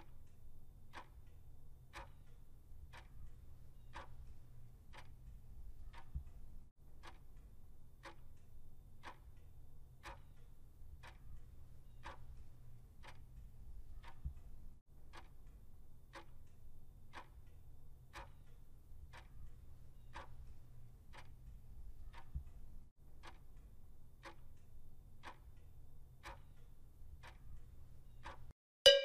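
Clock-ticking sound effect marking the seconds of a quiz countdown timer, about one tick a second over a faint low hum. A loud chime rings right at the end as the timer reaches zero, signalling that time is up.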